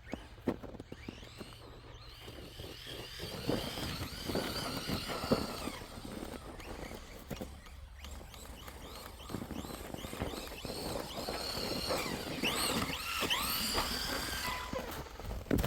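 Electric RC truck's motor whining, its pitch rising and falling again and again as the throttle is worked through snow and ice, with a few short knocks.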